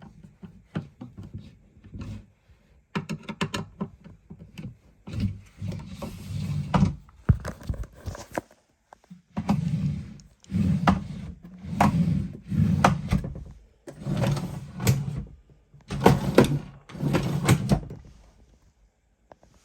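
Parts of a flat-pack chest of drawers being handled during assembly: a run of scraping and sliding sounds about a second long, each with sharp knocks, repeating every second or two.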